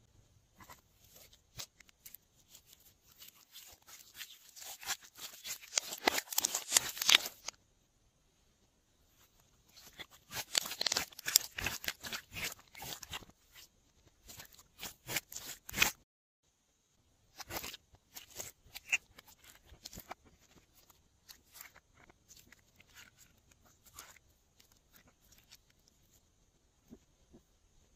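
Glossy slime being squished and pulled by hand: runs of quick, sticky wet clicks and pops, densest for several seconds near the start and again in the middle, with sparser pops later on.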